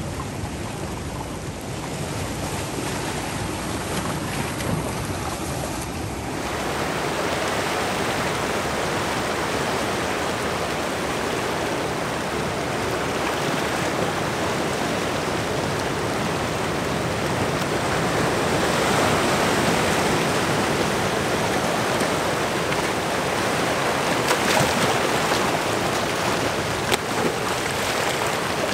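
Ocean surf rushing over and breaking against rocks, a steady wash of water. About six seconds in, it changes to a fuller, brighter rush of breaking waves.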